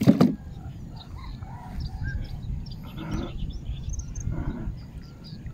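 A sharp splash and knock right at the start as a bamboo pole slaps the water, then quieter splashing and handling noise as a gill net is hauled up out of the river. Birds chirp faintly in the background.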